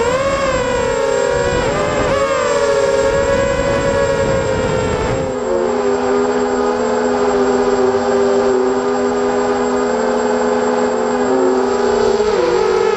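FPV quadcopter's motors and propellers whining at a high pitch that bends up and down with throttle changes. Wind rushes over the onboard microphone for the first five seconds; after that the pitch holds fairly steady until it wavers again near the end.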